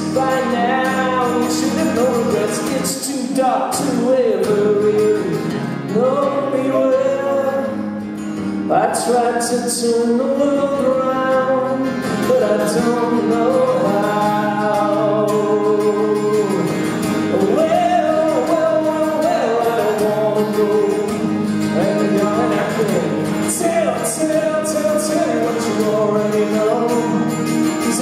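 A man singing live to his own strummed acoustic guitar, the voice carrying long, sliding notes over steady guitar chords.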